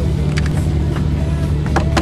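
Subaru Impreza STi rally car's engine idling, heard inside the cabin: a steady low drone with a few sharp clicks, one about a third of the way in and a couple near the end.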